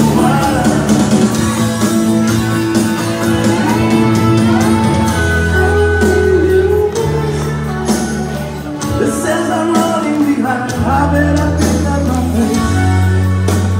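Country song with a lead singer over a full band backing, with steady held bass notes, played over a sound system in a reverberant gymnasium.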